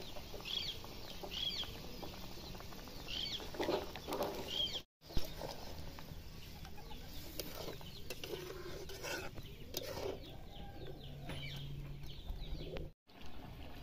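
Chickens clucking, with a run of short calls in the first few seconds. The sound drops out briefly twice.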